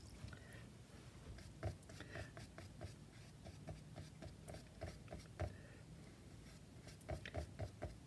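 Faint soft ticks of a watercolour brush dabbing on paper, about three a second, as a shadow's edges are worked in.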